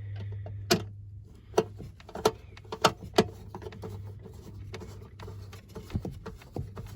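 Scattered sharp clicks and light knocks from handling small screws, a small Phillips screwdriver and a metal cover plate, five in quick succession in the first few seconds and one more later, over a steady low hum.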